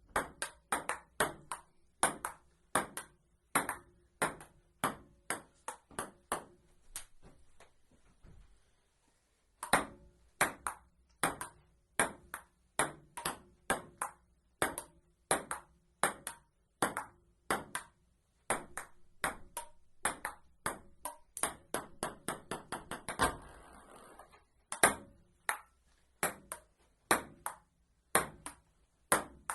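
Amateur table tennis rally: a ping-pong ball clicking off paddles and the table at a steady two to three hits a second. Play stops for about two seconds a quarter of the way in. A quick run of rapid bounces comes about three-quarters of the way through.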